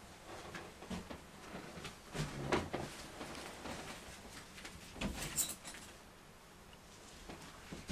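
Scattered knocks, clicks and bumps of things being handled in a small room, with a brief high-pitched rattle about five seconds in.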